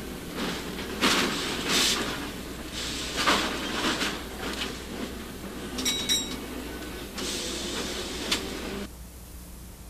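Streetcar running on its rails: irregular clattering and knocks, with a short high tone about six seconds in. The sound cuts off about nine seconds in, leaving a steady hiss.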